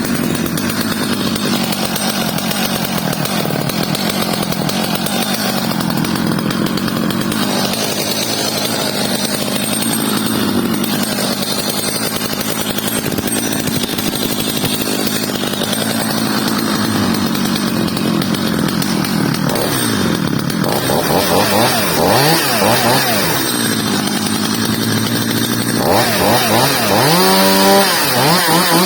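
Stihl MS 230 two-stroke chainsaw running after a repair, idling steadily for about twenty seconds. It is then revved up and down, with quick throttle blips near the end.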